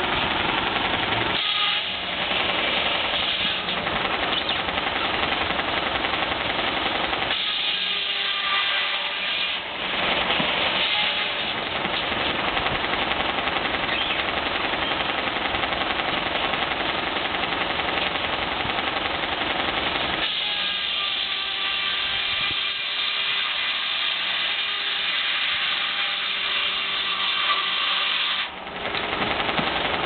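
Belt-driven circular sawmill running off a Case 110 steam engine: a loud, steady mechanical din of the saw and its drive. The sound shifts a few times, with a steady whine held for several seconds near the end.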